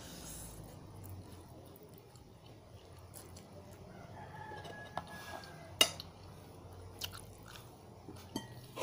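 Close-up chewing of pancit canton instant noodles and fried egg eaten by hand, with a few sharp clicks, the loudest just before six seconds in. A faint drawn-out call sounds in the background about halfway through.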